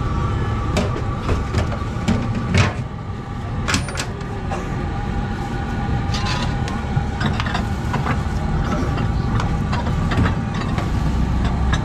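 Steady low rumble of street traffic and engines, with a few sharp metallic clinks of a ladle against a large steel cooking pot.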